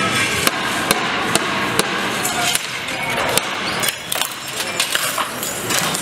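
Broken window glass clinking and breaking, a string of sharp, irregular knocks and clinks.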